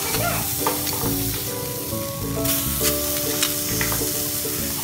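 Skewered squid and prawns with butter sizzling on a perforated metal grill plate over a gas flame, a steady hiss. A few light clicks come as the skewers are laid on and moved.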